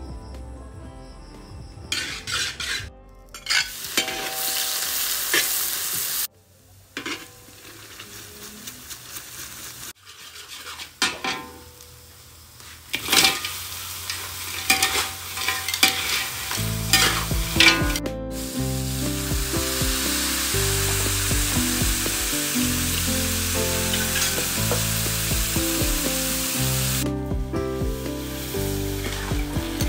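Crayfish frying in hot oil in a large wok: loud sizzling in several stretches, with the scrape and clatter of a spatula stirring them. The sizzle drops away near the end as water is poured in.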